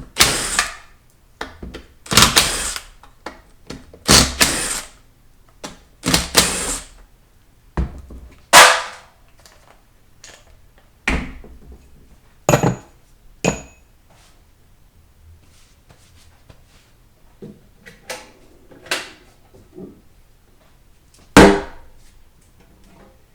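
Hand tools and metal transmission parts being handled and set down during a teardown: a string of separate knocks and clatters, a couple of them with a short metallic ring in the middle stretch.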